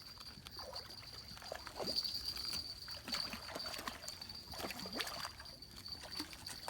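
Water trickling and sloshing faintly, with a steady high insect buzz throughout.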